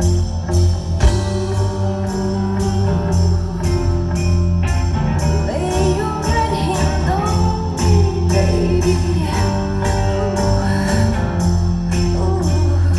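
Live rock band playing loud: a woman sings lead into a microphone over a steady drum beat, heavy bass and electric guitar, recorded from the crowd on a phone.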